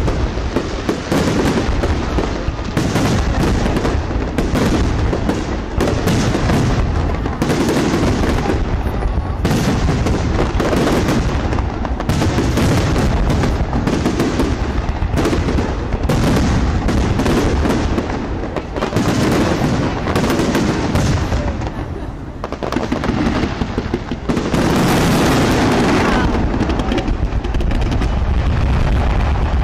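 Large fireworks display at its climax: a continuous barrage of shell bursts and bangs, packed close together, easing briefly about three quarters of the way through before building again into a dense, steady crackle of bursts.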